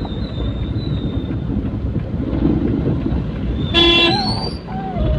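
Vehicle running along in traffic with steady road and engine noise, and one short, loud horn blast a little under four seconds in.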